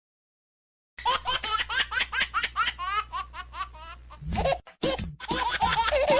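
Laughing-baby ringtone: a baby laughing in quick repeated peals, starting about a second in after a brief silence, with a short pause near the end.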